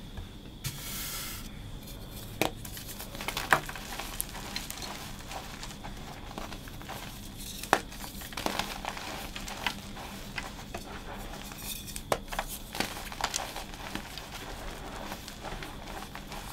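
Reformed gym chalk blocks crunching and crumbling as hands break and squeeze them into powder, with sharp cracking snaps every few seconds as pieces break off.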